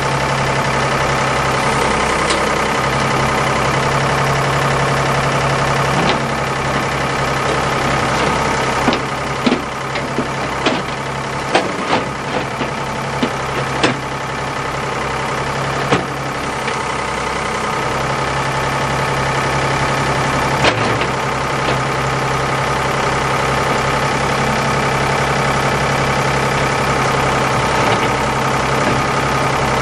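Ford backhoe's diesel engine running steadily, its pitch and load shifting slightly as the arms work. A string of sharp knocks and clunks comes about a third of the way in and one more a little past two-thirds, as the bucket dumps dirt into the steel dump-truck bed.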